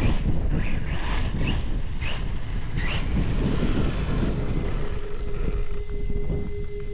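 Wind buffeting the microphone, with the Losi Tenacity MT RC monster truck's electric motor whining in several short rising bursts over the first three seconds. A steady tone starts about five seconds in.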